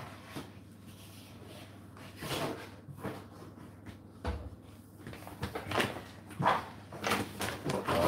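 A few scattered knocks and bumps over a low steady hum, coming more often in the last few seconds.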